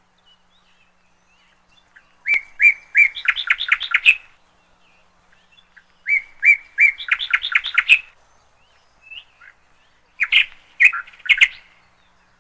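A bird singing: three short phrases of quick, high chirps, each lasting about two seconds, with pauses of a couple of seconds between them.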